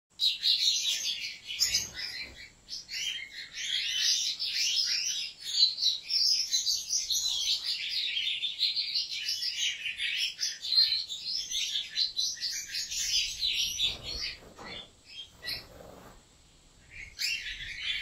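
European goldfinch song: fast, dense twittering that runs for about thirteen seconds, then thins to scattered notes, pauses briefly and picks up again near the end.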